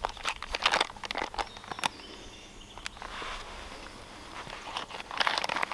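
Dry fallen leaves rustling and crackling as someone kneeling on them shifts and handles gear, with short clicks and taps. The crackling comes in two clusters, at the start and again near the end, with softer rustling between.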